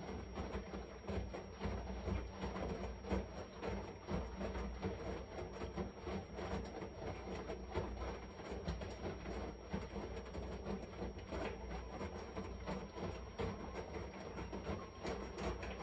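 Washing machine running: a continuous, uneven churning of the turning drum over a low hum, with a thin steady high whine throughout.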